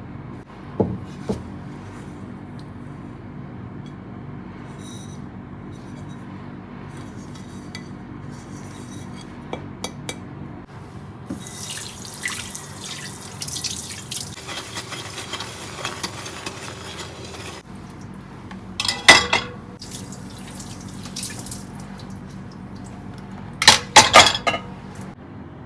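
Kitchen tap running into a sink for about six seconds midway. Dishes clatter loudly twice afterwards, the second time as several quick knocks.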